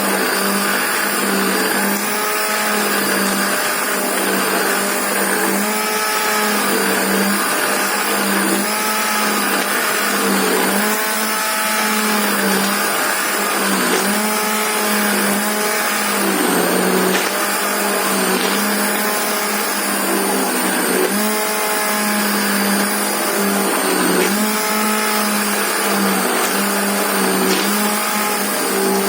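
Immersion (stick) blender running continuously, puréeing thick cooked pea porridge. Its motor whines steadily, the pitch wavering a little as the blade meets the mash.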